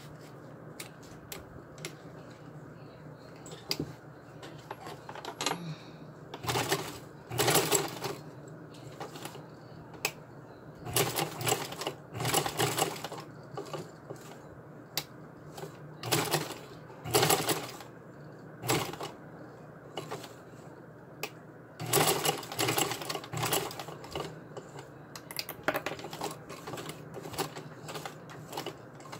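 Vintage black sewing machine stitching through webbing in short clattering runs of a second or two, about five times, with light clicks in between.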